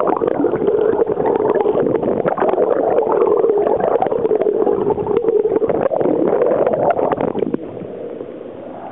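Sound recorded by a camera held underwater beside a boat: muffled water noise and gurgling with a steady, wavering hum and many crackling clicks. It drops in level about seven and a half seconds in, as the camera rises through bubbles toward the surface.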